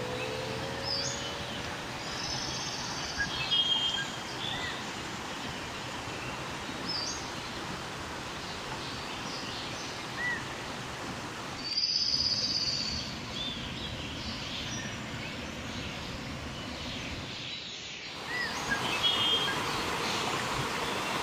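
Rainforest ambience: a steady noisy hiss under scattered bird chirps, with a short rising-and-falling whistled call that comes back several times. The background drops out briefly about twelve seconds in and again near eighteen seconds.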